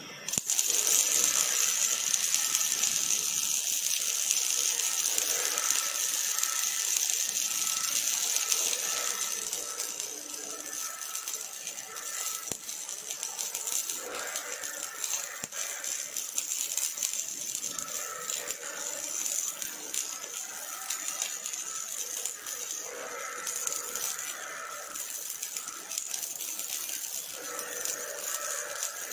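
Robotic MIG welding arc on a steel frame: a steady sizzling crackle of arc and spatter that starts abruptly just after the start and eases a little after about ten seconds.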